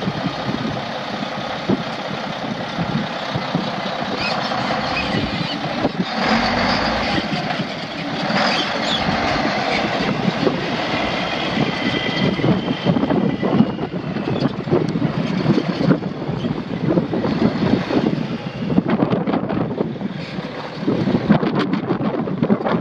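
Mack semi truck's E7 six-cylinder diesel engine running, with wind buffeting the microphone.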